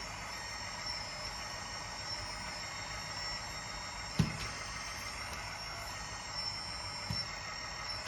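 RC hydraulic skid-steer loader running, its sound unit playing a steady simulated diesel engine over a high, steady hydraulic pump whine. A single knock comes about four seconds in, with a lighter one near the end.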